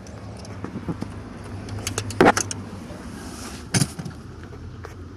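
Light clicks and rattles of parts being handled at a van's steering column, with two sharper knocks about two seconds in and just before four seconds.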